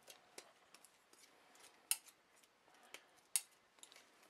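Faint clicks and light scraping from a metal squeeze-handle ice cream scoop as dough is packed and released, with two sharper clicks, one about two seconds in and one a little past three seconds.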